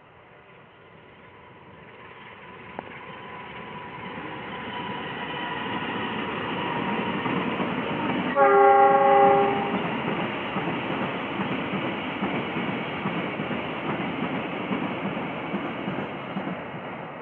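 PT INKA service train approaching and passing with a steady rumble that grows over several seconds, sounding its horn once, a short multi-tone blast, about eight and a half seconds in. The rumble begins to fade near the end.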